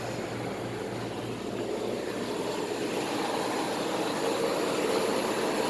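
2001 Carrier window air conditioner running with its fan on medium: a steady rush of air over a constant compressor and motor hum, with a slight vibration.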